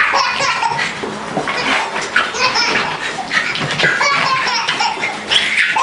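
A baby laughing in repeated bursts of belly laughter.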